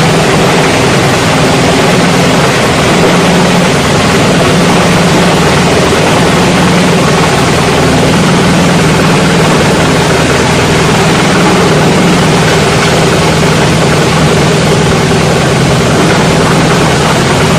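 28-inch plastic scrap grinder running and chopping plastic scrap: a loud, unbroken, dense grinding noise over a steady low hum.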